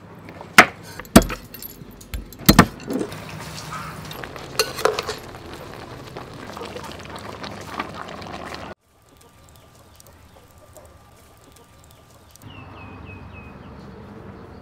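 Metal cookware and utensils clinking and knocking, with a few loud sharp strikes in the first three seconds and busier clatter after. After a sudden cut it goes quieter, and near the end there is a run of four or five short high chirps.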